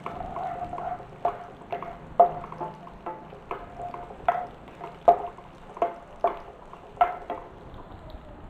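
Slotted wooden spoon stirring onions and whole spices frying in ghee and oil in a non-stick frying pan, knocking against the pan about a dozen times, roughly twice a second, over a faint sizzle.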